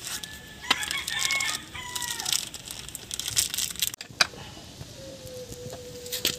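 A rooster crowing, about a second in, over short clicks and crinkling from plastic packaging being handled.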